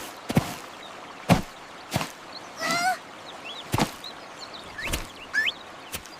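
Cartoon sound effects: a series of about seven sharp knocks, unevenly spaced, with one duck quack near the middle and a few short bird chirps.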